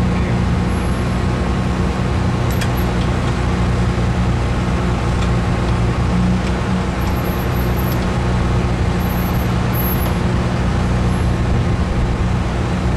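Jeep Cherokee XJ engine running steadily at low revs as the Jeep crawls over boulders, with a few faint clicks.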